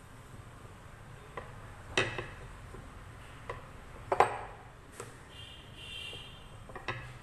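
Rolling pin rolling out a small ball of stiff dough on a countertop, with a few sharp clacks as the pin knocks against the counter, the loudest about two and four seconds in.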